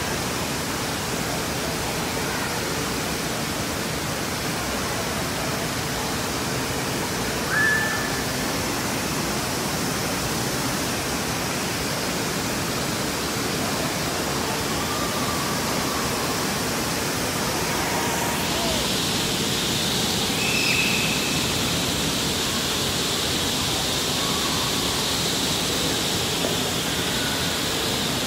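Steady rushing and splashing water from the pools and water features of an indoor water park, echoing in the big hall. A few faint, brief distant calls sound over it. The hiss grows brighter about two-thirds of the way in.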